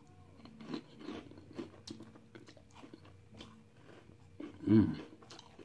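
Crunchy spicy chips being bitten and chewed close to the microphone: irregular crisp crunches, with a short voiced sound from the eater about three-quarters of the way through.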